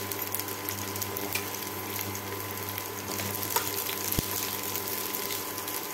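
Crushed garlic and mustard seeds sizzling steadily in hot oil in a stainless steel kadhai, stirred with a steel spoon, with a few faint clicks.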